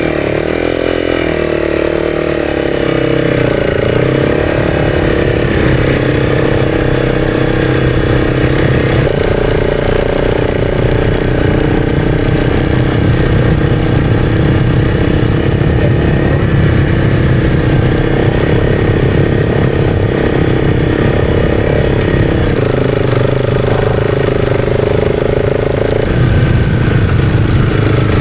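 Honda CRF300's single-cylinder four-stroke engine working hard through deep soft sand, revving up near the start, then holding fairly steady revs with a few steps up and down in pitch as the throttle or gear changes, over a steady rushing noise.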